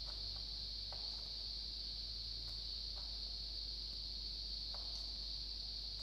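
Cicadas buzzing: a steady, unbroken high-pitched drone, with a few faint clicks scattered through it.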